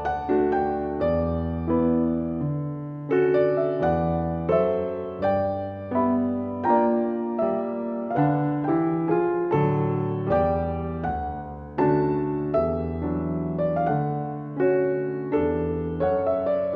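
Background piano music: slow, gentle notes and chords, each struck and left to ring away.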